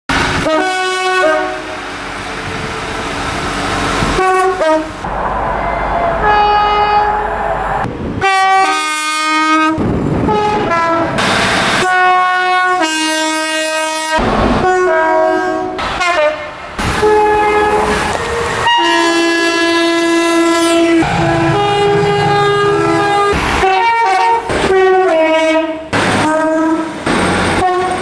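A run of British train horns sounding, one blast after another, mostly two-tone horns stepping between a high and a low note. The horns of several different trains follow each other with abrupt cuts from one to the next.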